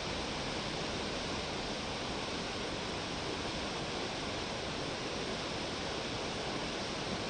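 Steady rushing noise of fast-flowing floodwater, with no breaks or distinct events.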